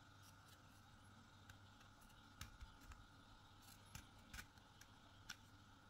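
Near silence with a handful of faint, sharp clicks as the steel blade bracket of a hair clipper is handled and worked off the plastic head by hand.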